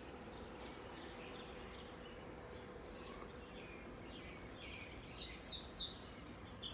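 Outdoor background noise with birds chirping in short calls that get louder and more frequent near the end, over a faint steady hum.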